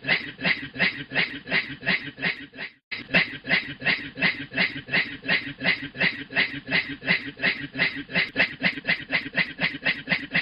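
A man's voice making a rhythmic, breathy 'hue hue' laughing chuff in imitation of a steam train, about four puffs a second. It drops out briefly about three seconds in, then carries on at the same pace.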